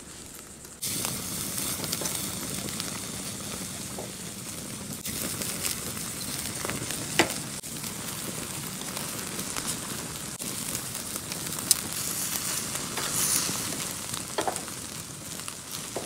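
Marinated chicken sizzling on a wire grill grate over a wood fire, a steady hiss that starts abruptly about a second in, with a few sharp clicks.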